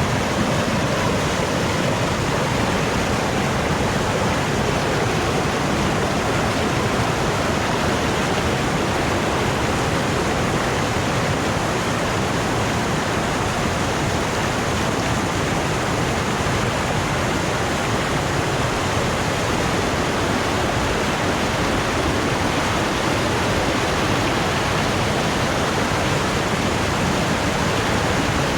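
Mountain waterfall on the Putna river: a steady, loud rush of falling water.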